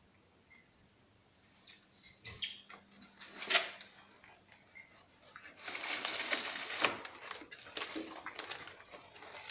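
A litter of puppies scrambling over each other in a plastic crate lined with paper: scratching, shuffling and rustling of the paper bedding, starting after a quiet second or so, with a longer stretch of rustling a little past the middle.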